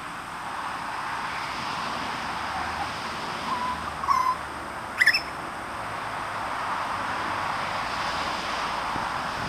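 Juvenile grey butcherbirds calling: a few short, level notes around four seconds in, then a quick upward-sweeping call about a second later, the loudest sound, over a steady background hiss.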